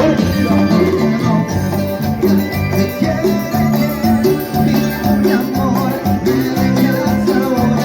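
Live cumbia band playing, with a bass line moving under held melody notes and percussion keeping a steady beat.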